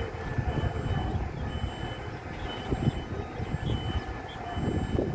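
Heavy construction machinery running: a steady drone with a few faint steady whining tones over an irregular low rumble.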